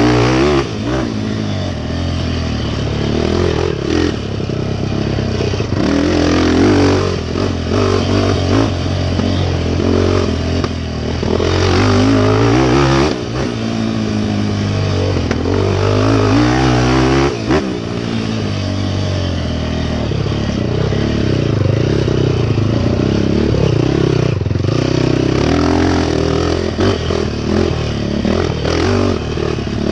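Off-road racing motorcycle engine being ridden hard, revving up and falling back over and over as the throttle is worked, with knocks and clatter from the bike over rough ground.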